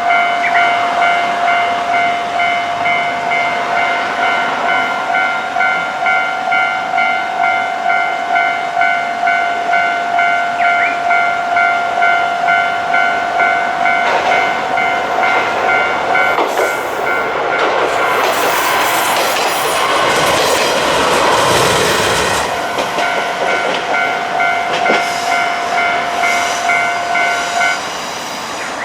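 Japanese level-crossing warning bell ringing in a steady, repeating electronic ding-ding at one fixed pitch. About halfway through, an Isumi Railway diesel railcar passes over the crossing, its engine and wheels swelling to the loudest point and fading again, and the bell stops shortly before the end.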